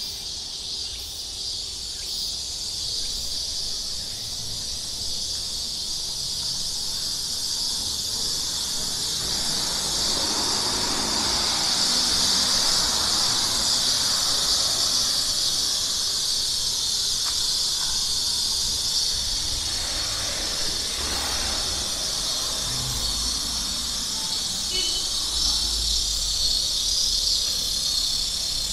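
Chorus of insects making a steady, shrill, high buzz that grows louder over the first third and then holds.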